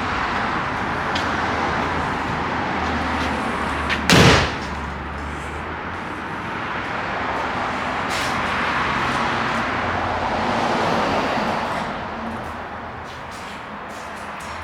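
Steady street traffic noise, with one loud, sharp thump about four seconds in.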